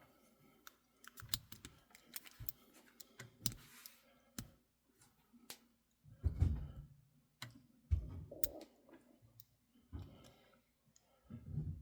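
A lock pick and tension wrench working the pins of a Master Lock 570: irregular small clicks and taps, with a few duller bumps about six, eight and eleven seconds in.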